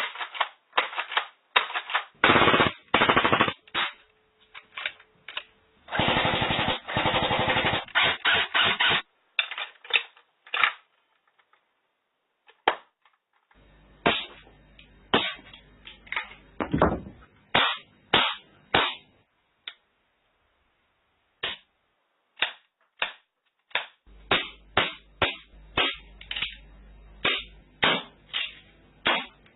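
Airsoft guns fired with no BBs loaded: several bursts of rapid full-auto clicking in the first nine seconds, then single shots and spaced short strings, with a run of fast, evenly spaced shots near the end.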